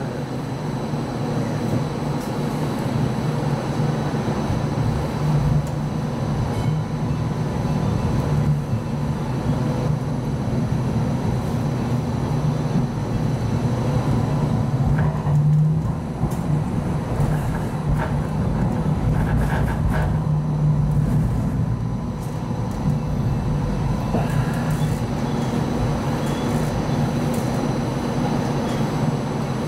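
Hong Kong Light Rail Phase I train running, heard from inside the passenger cabin: a steady low hum with wheel-on-rail rumble, the hum swelling a few times as the train picks up speed.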